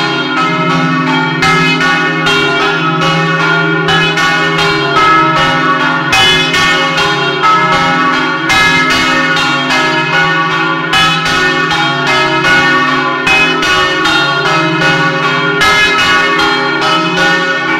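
Three bronze church bells swinging and ringing together in an electrically driven 'doppio' peal, their strikes overlapping in a dense, continuous clang. Loud and close, heard from inside the belfry right beside the bells.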